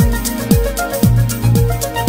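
Electronic background music with a steady beat, a kick drum about twice a second, over synth tones and hi-hat ticks.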